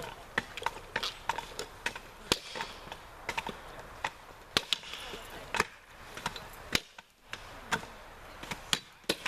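Axes chopping underhand into logs from several choppers at once: sharp, irregular wood-splitting thwacks that overlap, roughly two a second.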